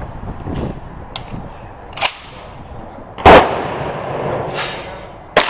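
M1 Garand rifle firing .30-06 Federal Power-Shock 180 gr soft points through a ported gas plug: one very loud shot a little past halfway, ringing out after it. Two sharper, quieter gunshots come about two seconds in and just before the end.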